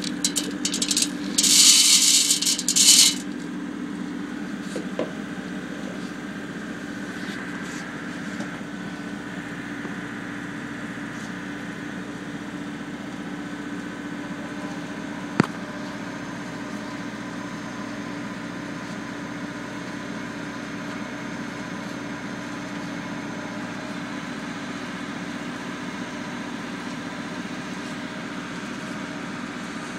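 Electric Täby screw oil press running with a steady machine hum as it crushes black soldier fly pupae for oil. A loud spell of noise in the first few seconds as the pupae go in, and one sharp click about halfway through.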